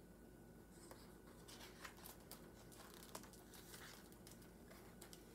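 Near silence: room tone with a few faint clicks and paper rustles from a hardcover picture book being handled.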